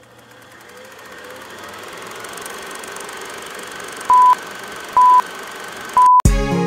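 Intro sound effect for a production-company logo: a whirring noise that slowly swells louder, then three short beeps at one pitch about a second apart, like a countdown. Music cuts in just before the end.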